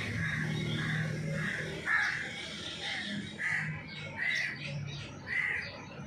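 Grey francolins calling: a series of short, harsh calls, about two a second, from a hen and her chicks.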